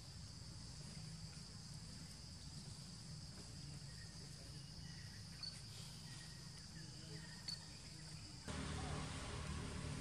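Faint, steady high-pitched insect drone over a low rumble, with two small clicks. About eight and a half seconds in it cuts off abruptly, giving way to a louder, even rushing noise.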